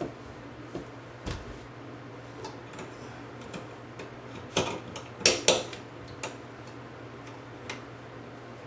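Scattered clicks and knocks of Delta 1300/1400-series shower valve parts being handled and pushed into place by hand. There is a dull thump about a second in and a quick cluster of sharper clicks about halfway through.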